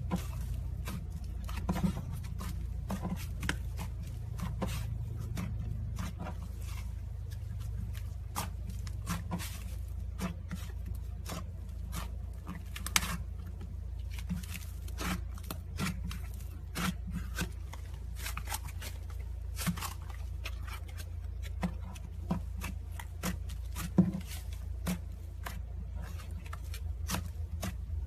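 Slime being squeezed and stretched by hand, giving a dense run of irregular small clicks and pops, with a steady low hum underneath.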